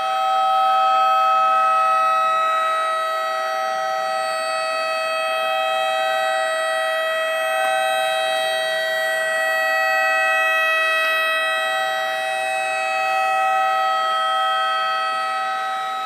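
Homemade electronic mini tornado siren, with a 555-timer tone generator driving an amplifier and a rotating horn, sounding a steady held tone at full wind. The pitch does not change, and the loudness swells and fades about every four seconds as the siren rotates.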